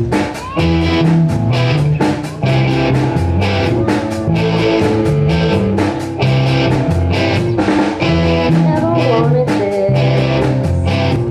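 A live rock band playing with electric guitar, bass and drum kit: the instrumental intro of a song, with drum hits keeping a steady beat.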